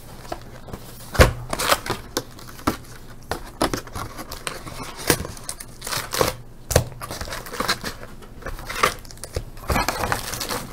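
A cardboard hobby box of baseball card packs being opened by hand and its foil-wrapped packs pulled out: irregular crinkling, rustling and snapping of foil wrappers and cardboard, the sharpest snap about a second in.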